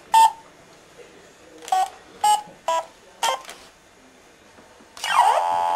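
Battery-powered toy ray gun's electronic sound effects: five short separate beeps, then, about five seconds in, a loud warbling siren-like wail with sweeping pitch.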